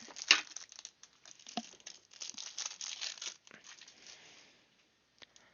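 Thin plastic packaging crinkling and tearing as a small toy is unwrapped, with the sharpest rip about a third of a second in. The crinkling stops a little past four seconds, followed by a couple of faint clicks.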